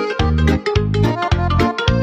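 Background music: an upbeat instrumental with keyboard-like notes over a steady, quick beat of about four strokes a second.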